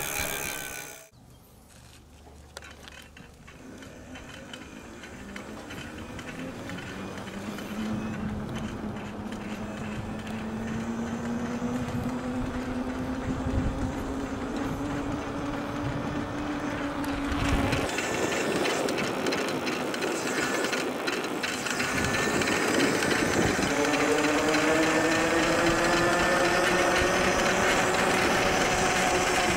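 E-bike's electric motor whining under power, its pitch rising steadily as the bike gathers speed, over a haze of tyre and wind noise. The whine breaks off about two-thirds of the way through and then returns, climbing again.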